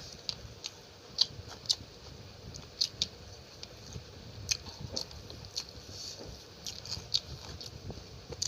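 Close-up chewing and wet mouth sounds of a person eating chicken curry and rice, with irregular sharp smacks and clicks several times a second.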